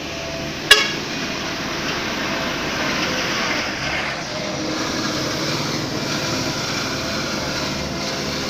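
Heavy construction machinery engine running steadily, with one sharp, loud clank just under a second in.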